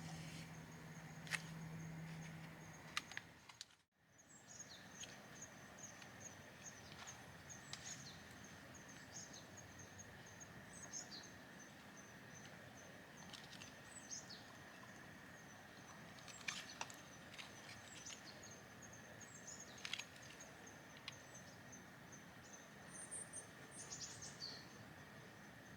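Faint outdoor ambience: an insect chirping steadily in a high, evenly repeating pulse, with a few short descending bird calls. The sound cuts out completely for a moment about four seconds in.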